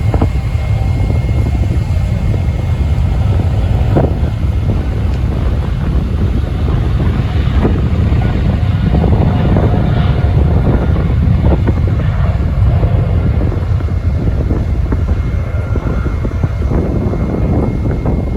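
Boeing 777-300ER's GE90-115B turbofans at takeoff thrust: a loud, steady low rumble with a thin steady whine above it, and wind buffeting the microphone.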